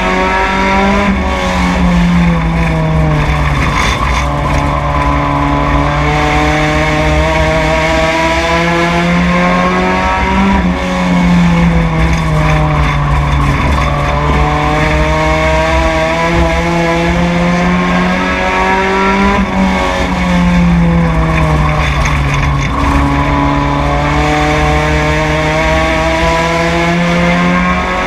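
Four-cylinder stock car engine at racing speed, heard from inside the car: the revs climb steadily down each straightaway and drop sharply as the driver lifts for the turns, in a cycle about every nine seconds, over a steady rush of road and wind noise.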